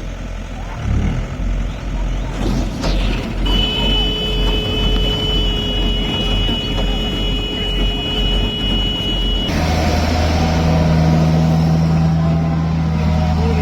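Diesel engine of a farm machine running steadily. A steady high-pitched tone sounds over it from a few seconds in until about two-thirds through. The engine note then changes abruptly to a louder, deeper steady drone.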